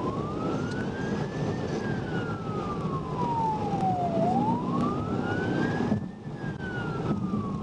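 Police car siren in wail mode, one tone sliding slowly up and down about once every four and a half seconds, over a steady low rumble.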